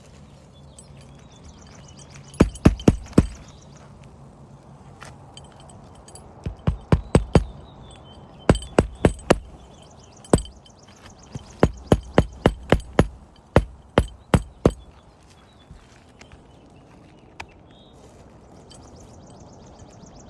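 Hammer driving roofing nails into asphalt shingles, in quick runs of about four to six blows, with several runs over some twelve seconds.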